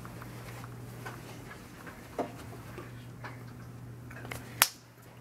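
Faint rustling and soft footsteps of people creeping through a room, with scattered small clicks and one sharp click near the end, over a steady low hum.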